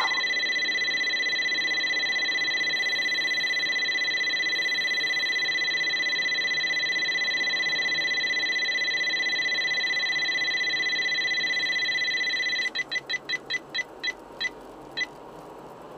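Escort laser detector alert warning of the Poliscan speed camera's laser: a steady high electronic tone for about twelve seconds, then breaking into short beeps that come further and further apart and stop about three seconds later.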